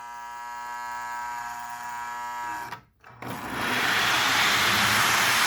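Steady electrical buzz with many even overtones, then a brief dropout about three seconds in. After it comes a loud, steady rushing rumble: the Lionel GP20 train set running fast on its track.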